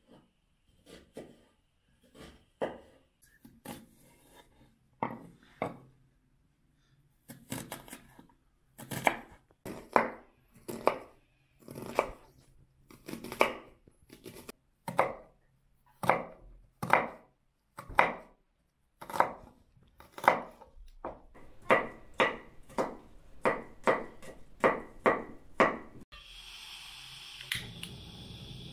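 A kitchen knife chopping onions on a wooden cutting board, at about one to two strokes a second and quickening to a faster run of strokes later on. Near the end the chopping stops and a portable gas burner hisses steadily.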